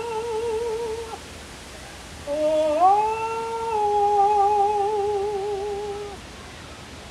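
A woman's unaccompanied voice singing long, wordless held notes with a slow vibrato. One note ends about a second in. After a short pause, a new note slides upward at about two seconds and is held for nearly four seconds.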